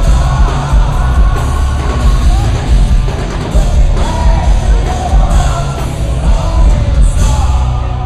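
Rock band playing live, with drums, guitars and a man singing and yelling into a microphone, heard from within the audience. The music thins out near the end.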